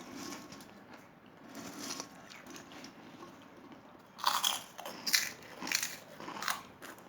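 A person biting and chewing crunchy food loudly. A few faint chews are followed, from about four seconds in, by a run of five or six crisp crunches.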